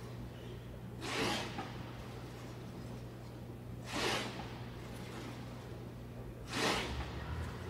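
Hard breaths out, a short hiss three times about every two and a half to three seconds, one with each calf raise on a plate-loaded leg press, over a low steady hum.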